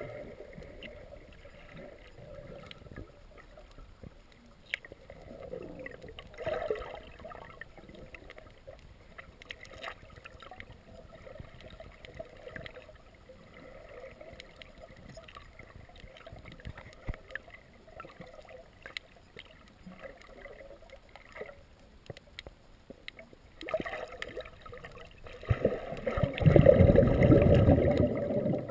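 Underwater ambience heard through a camera housing: a faint steady hum with scattered small clicks and ticks. About three seconds before the end, a much louder low rushing rumble of water noise.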